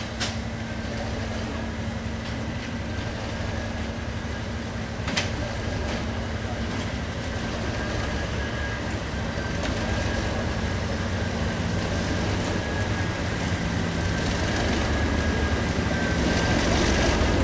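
Class 37 diesel locomotive's engine running steadily as it approaches slowly, growing gradually louder, with a steady high whistle above the engine note. Two sharp clicks, one at the very start and one about five seconds in.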